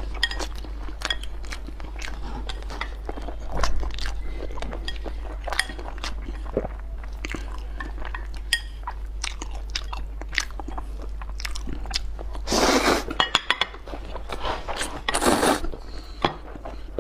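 Close-up eating sounds of a person eating noodle soup with eggs: chewing and biting with many small clicks, and two louder, longer noisy sounds about two-thirds of the way through. A steady low hum runs underneath.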